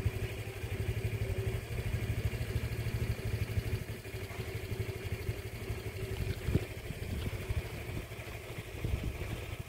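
A small engine idling steadily, a low rumble, with a brief thump about six and a half seconds in.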